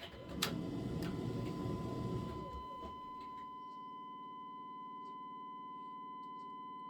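A steady high-pitched electronic beep held on one pitch, with faint rustling and handling noise during the first two or three seconds.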